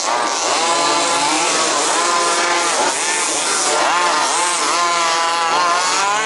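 Small two-stroke petrol engines of 1/5-scale remote-control Baja buggies racing, several at once, their revs rising and falling as they throttle through the track's corners.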